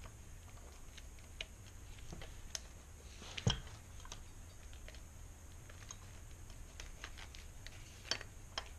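Scattered light clicks and taps of a motorized-bicycle engine's crankcase and cylinder studs being handled with gloved hands while a head-side gasket is fitted over the studs, with one sharper knock about three and a half seconds in and a couple more clicks near the end.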